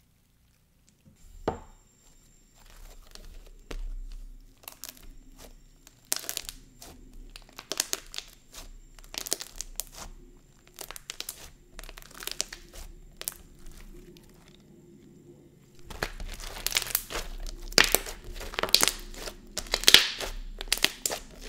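Glossy Lychee Chew slime being pressed, folded and squeezed by hand, giving a run of crisp, poppy clicks and crackles that grow denser and louder over the last five seconds or so.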